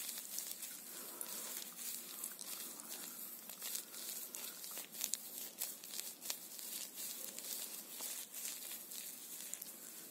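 Plastic grooming tools handled right against the microphone: irregular clicks, taps and crinkling.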